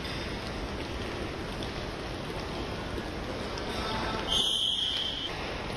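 Steady noise of a large training hall, then a bit over four seconds in a high, steady signal tone sounds for about a second.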